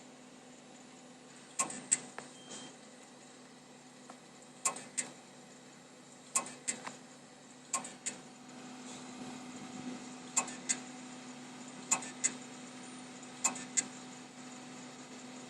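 New computer making an abnormal noise: pairs of sharp clicks repeating every second or two over a steady low hum.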